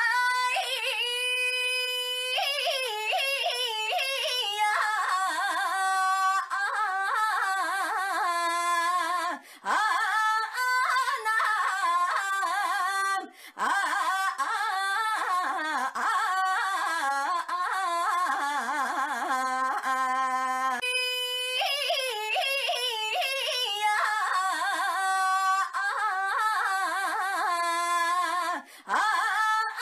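A young woman's high, drawn-out cry of "ainyaaa", held long and wavering up and down in pitch like a sung note, breaking off briefly a few times before starting again.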